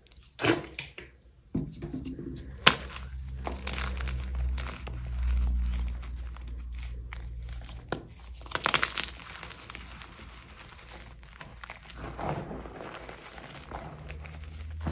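Soft dyed gym chalk block snapping as it is broken by hand, then crunching and crumbling as the chunks are squeezed into powder. There are a couple of sharp snaps in the first few seconds and another dense flurry of crunching past the middle.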